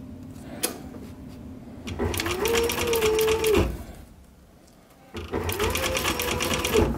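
Sewing machine stitching a zipper tape to a leather strip in two short runs, about two seconds in and again about five seconds in. Each time the motor speeds up, runs steady with rapid needle strokes for about a second and a half, then stops.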